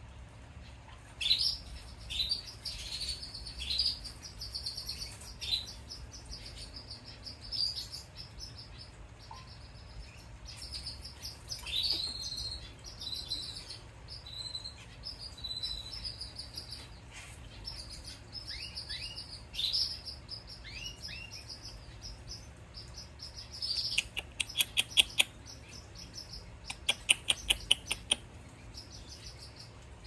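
A one-day-old Isabel canary chick begging to be fed, giving thin, high peeps in short runs, many of them sliding downward. Near the end come two quick runs of sharp clicks.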